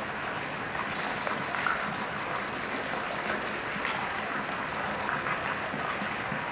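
A small bird chirping a quick run of short, high notes for about two and a half seconds, starting about a second in, over a steady background hiss.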